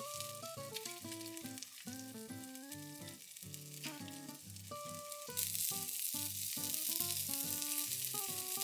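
Hamburger patty frying in a nonstick pan: a steady sizzle with fine crackling, which grows louder about five seconds in.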